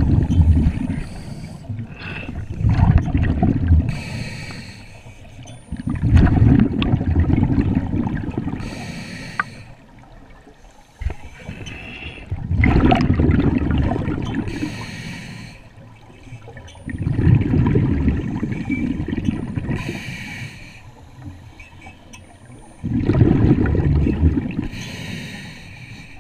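Scuba diver breathing through a regulator underwater: a slow cycle of loud, rushing bubble exhalations every five or six seconds, with a shorter, fainter hiss of inhalation between them.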